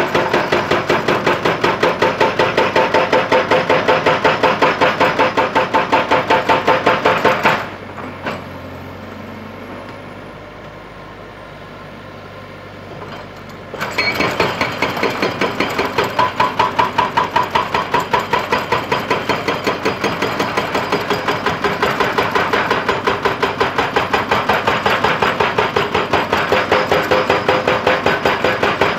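Hydraulic rock breaker on an excavator arm pounding rock in rapid, even blows. The hammering stops about a quarter of the way in, leaving a quieter steady engine sound for about six seconds, then starts again.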